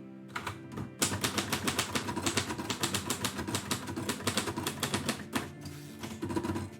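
Typewriter keys striking in a quick run of typing, several strikes a second, breaking off about five seconds in before a few more keystrokes near the end. Faint background music underneath.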